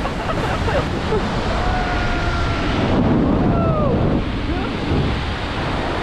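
Wind rushing over an action camera's microphone as a rope jumper swings on the rope, mixed with the steady rush of a nearby waterfall. The noise swells a little about halfway through.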